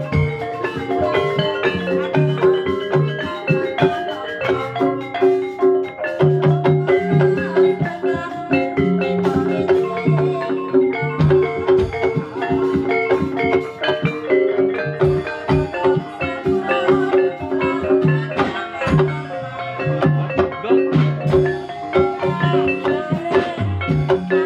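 Live accompaniment music for a Javanese jaranan (ebeg) horse dance: tuned mallet-percussion instruments play a dense, repeating pattern with lower notes beneath, without a break.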